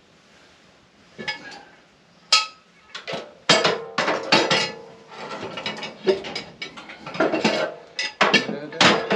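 Irregular metal clanks and ratcheting from a sawmill's hand-operated log turner and its steel fittings, straining to roll a heavy log, with some strikes ringing briefly.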